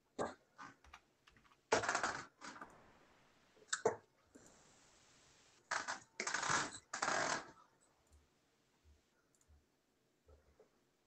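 Irregular clicks and short bursts of rustling handling noise, the loudest bursts about two seconds in and again a little past the middle.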